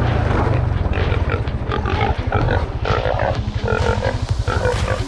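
Feral pig squealing and grunting in repeated short bursts while held by catch dogs, over a quad bike engine running.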